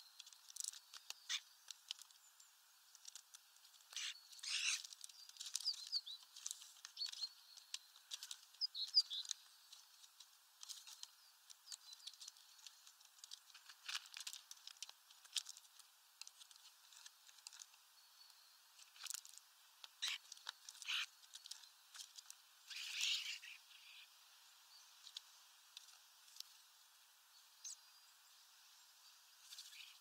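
European starlings at a seed feeder: irregular sharp taps of beaks pecking seed on the plastic tray, with a few short calls in the first third and a burst of wing flaps about three-quarters of the way through.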